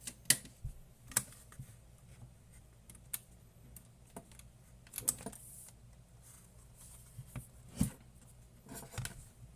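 Scattered sharp clicks and taps, a few seconds apart, from small hard objects being handled on a workbench, over a steady low electrical hum.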